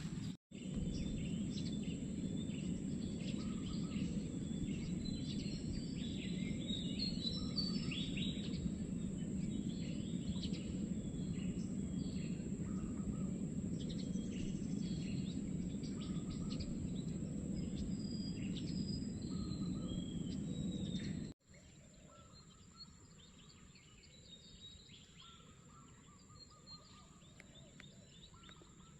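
Small birds chirping with many short calls over a steady low rushing noise and a thin high-pitched whine. About 21 seconds in the sound cuts abruptly: the rushing drops away and fainter chirping continues.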